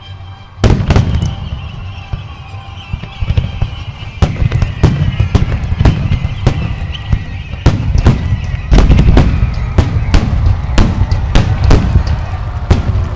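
Aerial fireworks going off in a dense barrage: sharp booms of bursting shells in quick succession, starting suddenly about half a second in, over a high whistling tone that slowly falls in pitch.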